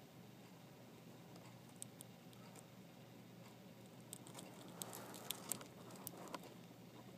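Near-silent room tone with a cluster of faint, sharp clicks and taps about four to six and a half seconds in.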